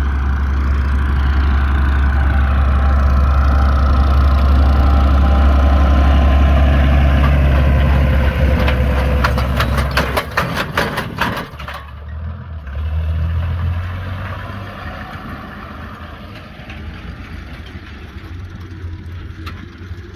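Fendt 306 tractor engine running loud and steady close by. About ten seconds in, after a quick run of clicks, it drops away and carries on fainter.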